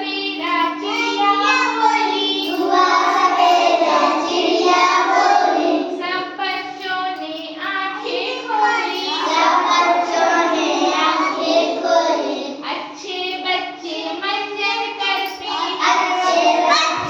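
A child singing a Hindi rhyme in a sing-song voice, line after line without a break. A steady hum runs underneath for about the first half, then fades.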